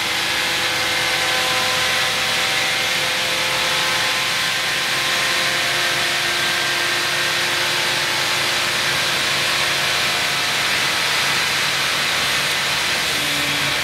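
Vehicle engine running at a steady speed on a chassis dynamometer, heard as a loud, even hiss with faint engine tones underneath. The exhaust is leaking.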